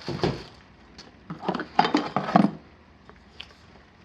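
Hard parts clinking and knocking together as freezer accessories are handled: a scatter of short light knocks, bunched between about one and two and a half seconds in, with a single tap later.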